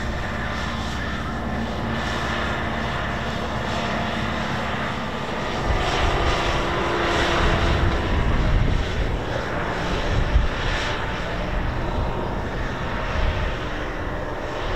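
Aircraft engines running at an airfield: a steady low engine drone, joined about five and a half seconds in by a louder, rougher rush of engine noise that holds for the rest of the time.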